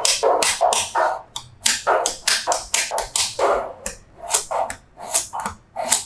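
Small magnetic balls clicking and clacking as rows of them are snapped and pressed into place on a slab of balls: an irregular run of sharp clicks, about two to three a second.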